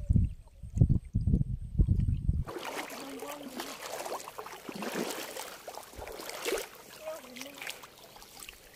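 A low, uneven rumbling that cuts off about two and a half seconds in. It is followed by a light, steady rustling and pattering as small fish are picked out of a nylon cast net on a gravel bank.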